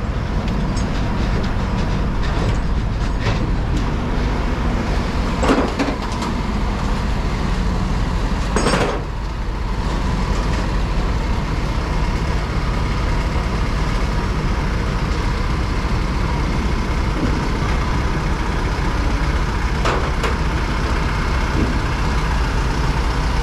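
Heavy diesel engine running steadily at a low rumble, with a couple of short metallic clanks about five and a half and nine seconds in.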